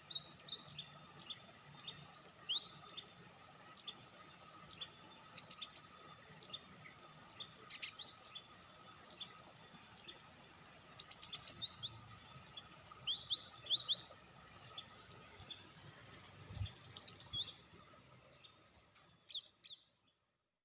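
A bird chirping in short clusters of quick, rising notes, a burst every one to three seconds, over a steady high-pitched whine. It fades out near the end.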